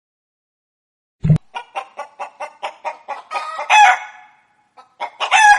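Chicken clucking in a quick series, about four or five clucks a second, building into a loud, drawn-out squawking cackle, with a second squawk near the end.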